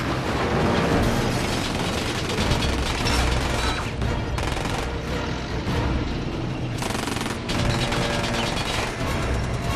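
Rapid automatic gunfire, with bullets striking and ricocheting off a steel excavator bucket, over film-score music and a steady low rumble.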